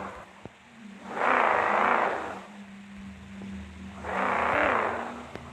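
Volkswagen Golf revving hard twice over a steady idle while straining to pull a heavy trailer, with the wheels slipping.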